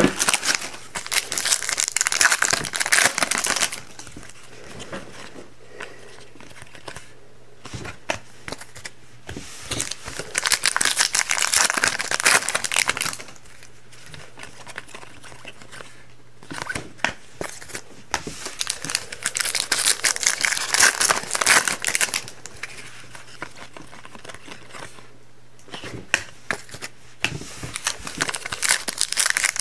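Foil trading-card pack wrappers being torn open and crinkled, in four bursts of a few seconds each, about every nine seconds, with lighter rustling and handling of cards in between.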